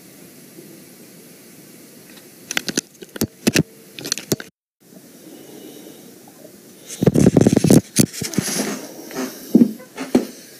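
Scattered clicks and knocks over a steady hiss, with the sound cutting out completely for a moment about four and a half seconds in. From about seven seconds in comes louder, irregular clattering and scraping.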